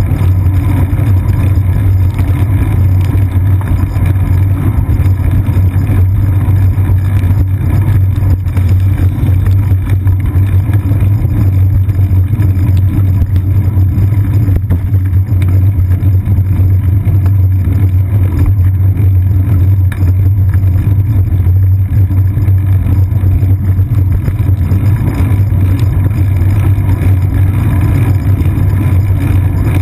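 Steady, loud low rumble of a bicycle rolling over wet pavement, the road vibration and wind picked up by a camera clamped to the bike's seat post. It holds an even drone throughout, with no distinct events.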